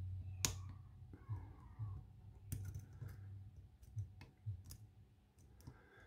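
Faint metallic clicks of a hook pick and tension wrench working the pins inside an ABUS padlock core: one sharp click about half a second in, then scattered lighter clicks. The picker is chasing the core's counter-rotation and has not yet got the first pin to set.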